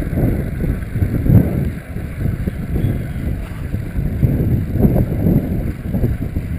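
Wind buffeting the microphone of a camera on a moving bicycle, a gusty low rumble that rises and falls unevenly.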